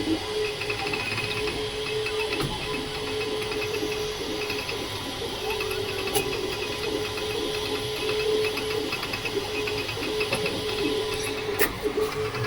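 Creality K2 Plus 3D printer running a print: a steady motor whine with fast, even ticking over it, and a couple of sharp clicks near the end. The owner finds the noise unusual for this printer and wonders whether a slow print-speed setting is the cause.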